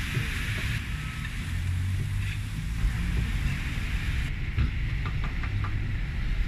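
Street-stand ambience: a steady low rumble of street noise under the sizzle of onions and meat on a flat-top griddle, with a few light clicks about five seconds in.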